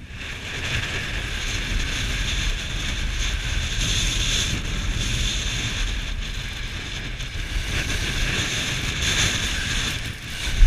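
Wind buffeting an action camera's microphone over the steady hiss and scrape of skis sliding on snow during a downhill run, with a brief knock near the end.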